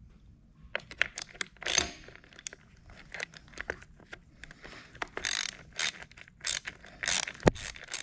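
Hand ratchet with a 7/16-inch socket on a universal joint clicking in short irregular runs, with small metallic clinks and scrapes, as it works the nut holding the idler cable on a Hobie Mirage kayak drive. The clicks start about a second in.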